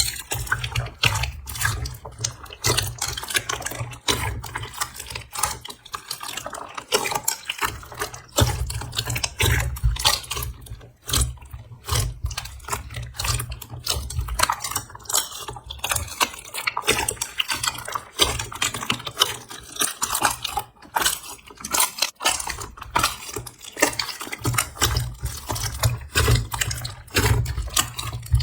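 Slime being squeezed and kneaded by hand, a dense irregular run of wet clicks, pops and squelches.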